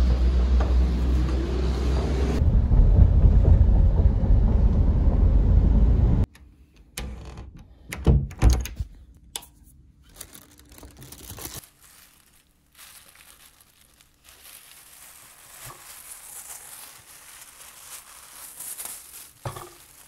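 Loud, steady low rumbling noise on a phone microphone while walking, which cuts off abruptly. A few soft knocks follow in a quiet room, then faint crinkling of plastic shrink-wrap on manga volumes as they are handled near the end.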